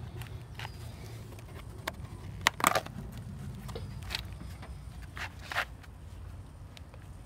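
Worn leather Sperry Top-Sider boat shoes scuffing and scraping on asphalt as bare feet slide into them and step. Scattered short scrapes and clicks, the loudest a quick cluster about two and a half seconds in, over a low steady rumble.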